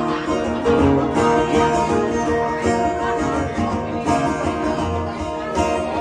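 Background music played on plucked string instruments, with a steady, busy run of notes.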